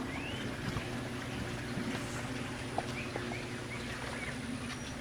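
Steady low mechanical hum, with a few short bird chirps and small clicks over it.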